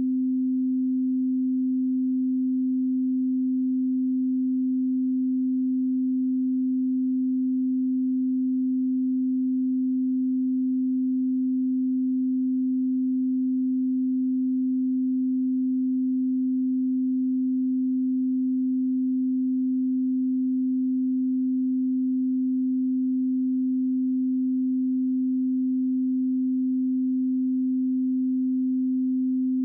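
A 258 Hz pure sine-wave calibration tone, one steady low hum held at a constant level with no change in pitch.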